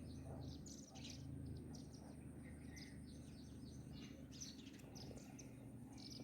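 Small birds chirping, many short quick chirps in a busy run throughout, over a steady low background rumble.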